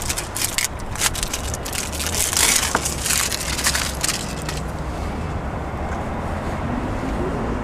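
Scraping and crackling as a plastic valve with an O-ring is pushed and worked into a hole in a plastic float tank, lasting about four seconds. After that comes a steadier low rumble.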